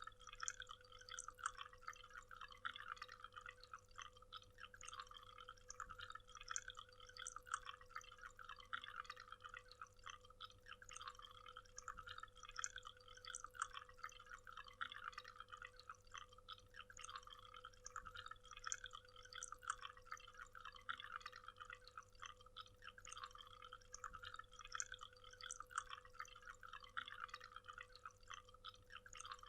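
Small waterfall, water falling and splashing steadily with many little drips and splashes, faint overall.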